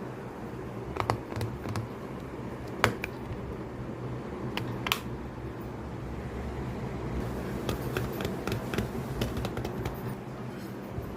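Fidget board toys being clicked and snapped by hand: irregular sharp plastic clicks, a few spaced apart, then a quicker run of clicks near the end.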